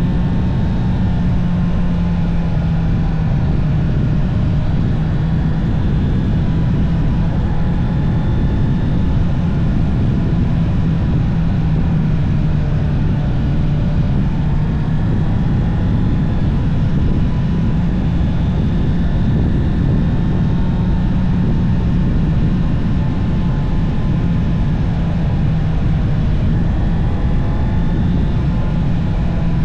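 Honda CB650R's inline-four engine running through its stock exhaust under way, its pitch rising and falling gently with the throttle, under heavy wind rush on the rider's microphone.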